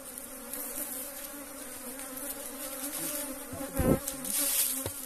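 Honey bees buzzing at the hive, a steady low hum. A thump just before four seconds in, then a few light knocks near the end.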